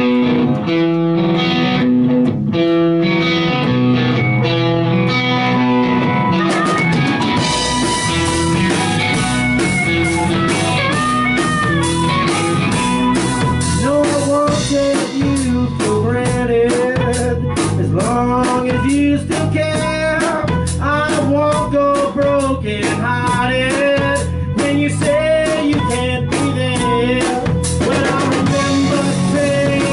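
Live blues-rock band playing: an electric guitar riff with bass opens, and the drum kit comes in fully with cymbals about six seconds in. Over the band a harmonica wails in bending notes.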